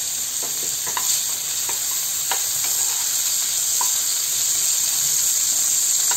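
Diced potatoes frying in hot mustard oil: a steady sizzle with scattered pops and crackles, mostly in the first few seconds, as a wooden spatula stirs them around the pan.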